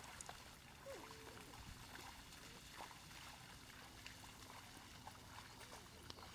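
Near silence: faint outdoor background hiss with a few soft clicks and taps.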